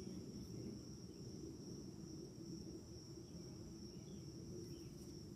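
Insects trilling steadily in one unbroken high-pitched tone, with a faint low hum underneath.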